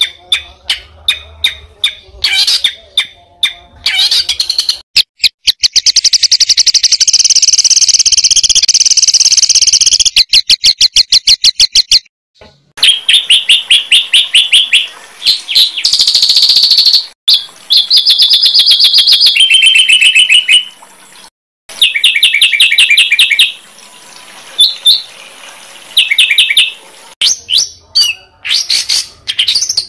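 Songbirds singing in quick, high-pitched trills and rapid strings of repeated sharp notes, in loud stretches that change abruptly from one phrase type to another, with a couple of brief gaps.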